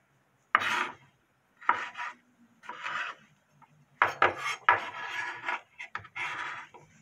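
Kitchen knife slicing red bell pepper on a wooden cutting board: separate crisp cuts about a second apart, then a quicker run of cuts and the pieces being scraped together on the board.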